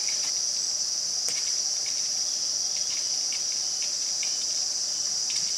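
Steady, high-pitched drone of a forest insect chorus, with a few faint short ticks here and there.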